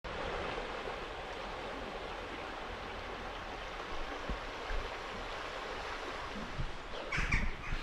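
Steady rush of flowing water from a stream or waterfall. A bird chirps a few times near the end.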